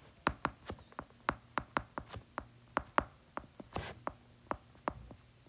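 Stylus tip tapping on a tablet's glass screen while handwriting: irregular sharp ticks, about four a second, as each pen stroke touches down.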